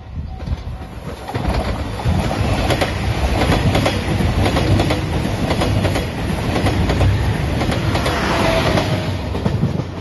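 JR Shikoku 2700 series diesel express train passing close by, its wheels clicking rapidly over the rail joints. It gets loud about a second in and drops away right at the end.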